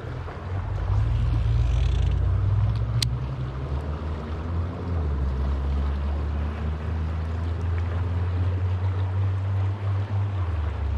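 Low, steady engine rumble of a boat motor on the river, its pitch shifting down a little about halfway through, with one sharp tick about three seconds in.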